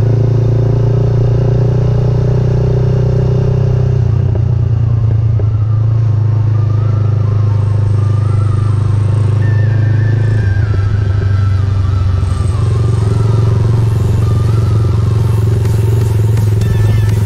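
A GPX Legend Gentleman 200's single-cylinder engine runs steadily at low cruising speed, heard from on the motorcycle, with a slight change in its note a few seconds in and again about halfway through.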